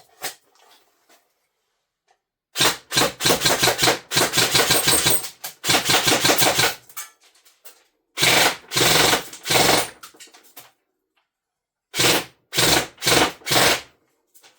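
G&G SGR 556 airsoft electric rifle firing on full auto in about four bursts, its gearbox cycling rapidly and cleanly, with quiet gaps between bursts.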